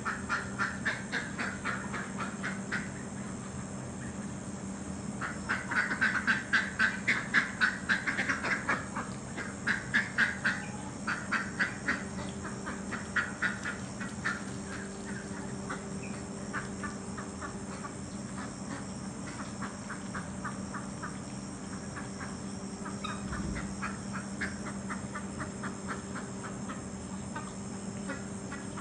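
Adult domestic duck hens quacking in repeated runs of quick quacks, loudest and densest from about five to fourteen seconds in, with a steady low hum underneath.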